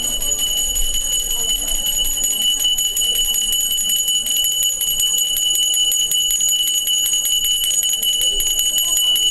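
Small metal hand bell shaken fast and without pause, a steady high ringing made of many quick strikes.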